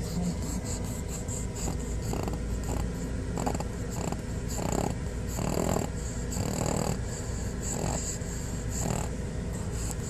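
A sleeping pug snoring heavily, one snore roughly every second.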